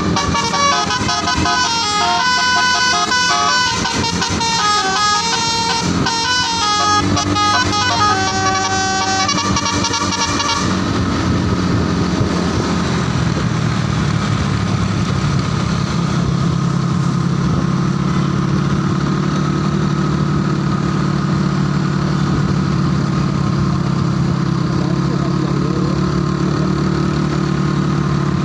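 A bus's telolet 'basuri' melody horn plays a quick, stepping multi-note tune for about ten seconds, then stops abruptly. After that, a steady low drone continues until the tune starts again at the very end.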